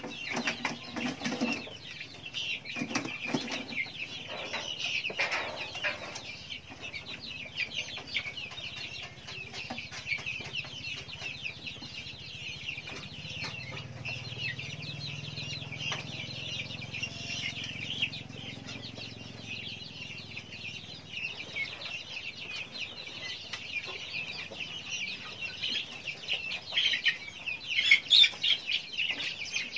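A flock of young guinea fowl (keets) chirping continuously, many high, short calls overlapping, growing louder near the end.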